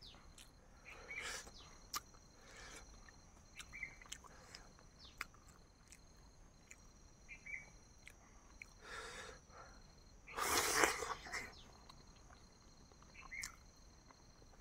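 Quiet chewing and mouth sounds while eating boiled eggs, with scattered small clicks and a louder noisy burst about ten seconds in. Crickets chirr steadily in the background.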